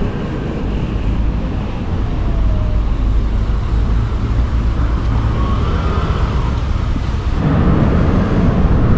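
Wind rushing over the microphone, with road and traffic noise, while riding an electric scooter. It gets louder about seven and a half seconds in as the scooter picks up speed on the open road.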